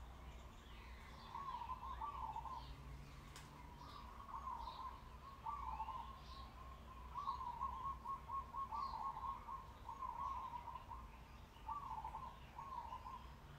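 Birds singing: a short warbled phrase repeated about every second or two, with fainter high chirps from other birds.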